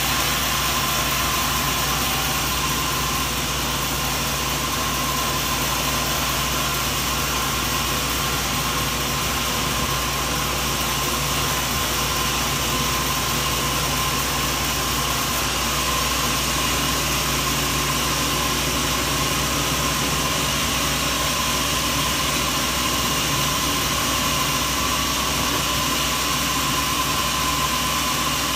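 Sawmill machinery running steadily, a constant mechanical hum with a hiss over it and no change in pitch or level.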